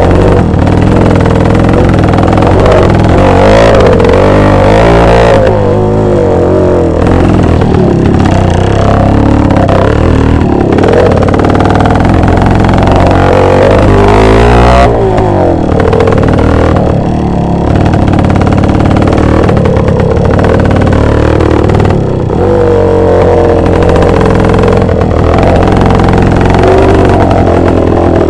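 Two-stroke motorcycle engine running and revving, its pitch rising and falling again and again.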